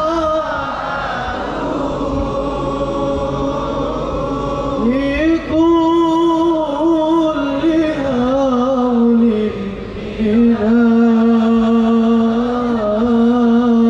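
A man's voice chanting an Islamic devotional song (sholawat) in long held notes that waver and bend in pitch.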